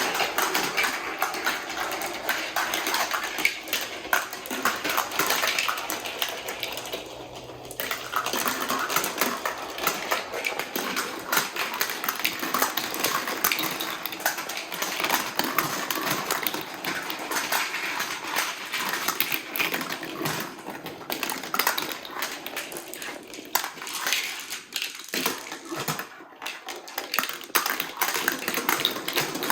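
Many balls rolling and clattering through a VTech Marble Rush marble run, a dense continuous rattle of clicks, with brief lulls about seven and a half and twenty-six seconds in.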